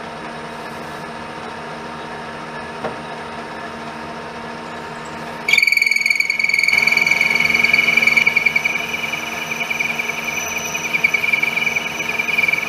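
Metal lathe running with a steady hum. About five and a half seconds in, the parting-off tool starts cutting the workpiece and a loud, steady high-pitched squeal with overtones begins and keeps on: the sound of a parting tool singing in the cut.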